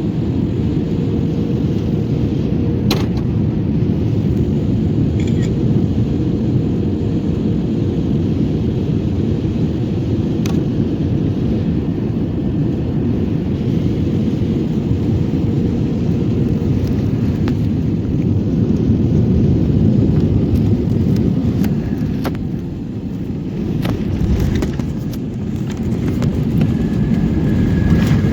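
Airliner cabin noise: a steady low rumble of engines and airflow, with a few faint clicks. It swells in the later part and dips briefly.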